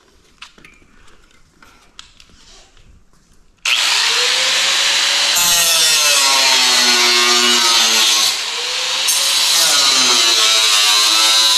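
A power tool cutting sheet steel starts about four seconds in and runs loud and continuous. Its pitch sags and recovers as it bites into the metal, with a brief easing-off partway through.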